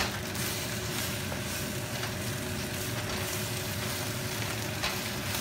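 Hot oil sizzling steadily in a wok, with an occasional light click.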